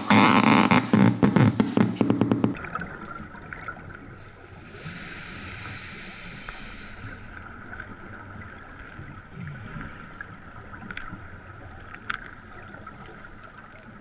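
Background music with a beat that cuts off about two and a half seconds in, followed by muffled underwater ambience from a camera housing: a steady hiss with a few faint clicks and a brief rush of noise about five seconds in.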